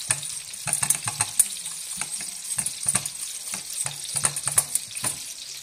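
Wire whisk clicking and scraping against the sides and bottom of a stainless steel saucepan as a red wine sauce is stirred, in irregular strokes several times a second. A steady sizzling hiss runs underneath.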